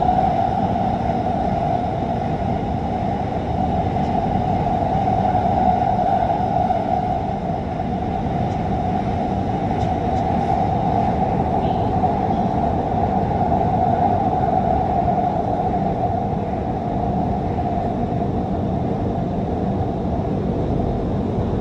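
Doha Metro train running steadily between stations, heard from inside the front car: a constant low rumble with a steady whine over it.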